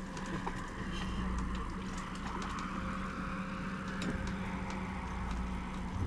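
Electric trolling motor (Minn Kota i-Pilot) humming steadily as it holds the boat on spot lock in the current, under a steady hiss of water and wind, with a few faint ticks.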